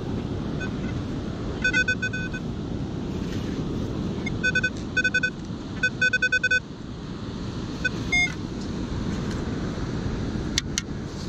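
Beach metal detector giving short, high electronic beeps in quick runs as its coil passes over a buried metal target, with a steady rumble of wind and surf underneath.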